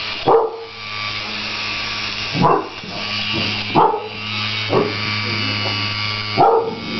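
A dog barking five short barks at a mini handheld fan, whose small electric motor buzzes steadily between the barks.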